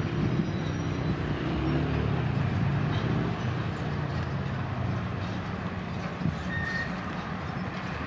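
Passenger railcars rolling past at slow speed: a steady rumble of steel wheels on the rails, with a short high squeak about two-thirds through.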